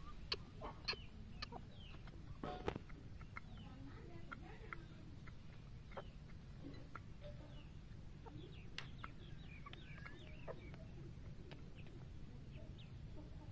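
Chickens clucking with short high calls at irregular intervals, along with a few sharp clicks over a steady low rumble.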